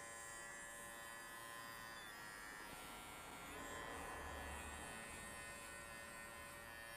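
Cordless pet clipper fitted with a 6 mm comb attachment, buzzing steadily as it trims a Yorkshire terrier's coat, a little louder for a moment around the middle.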